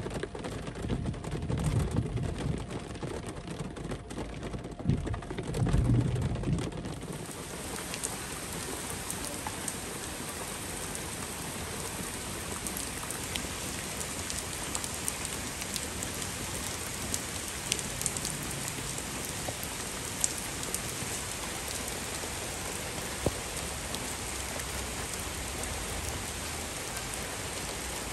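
Heavy monsoon rain falling steadily on a wet street and into puddles, an even hiss with now and then a single drop striking close by. For the first several seconds a low rumble comes and goes beneath it, then the hiss of the rain is left alone.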